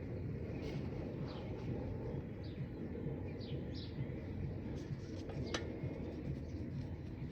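A small bird chirping: short, high, falling notes repeated at uneven gaps, over a steady low rumble. A single sharp click about five and a half seconds in.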